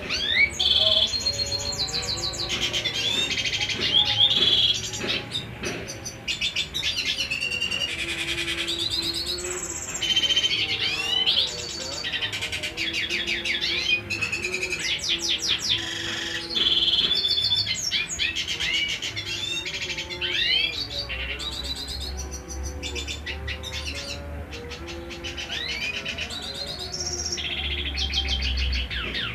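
Male black-hooded siskin singing: a long, fast twittering song of rapid chirps and sweeping trills, in runs broken by brief pauses.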